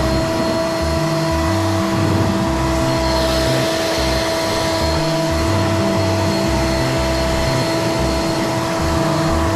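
Battery-powered leaf blower running steadily at full speed, a loud rush of air with a steady whine over it.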